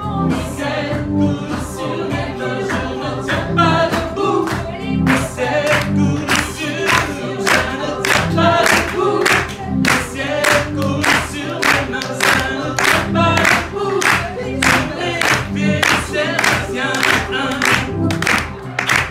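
A small choir singing live over music with a steady beat, about two beats a second.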